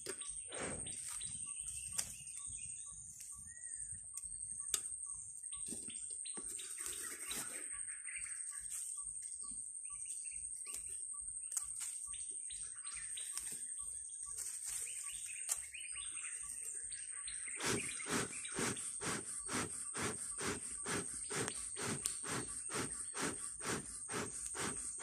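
Bee smoker's bellows being pumped, pushing air through the smouldering fuel in regular puffs of about two a second. The puffs grow stronger and more even about two-thirds of the way in.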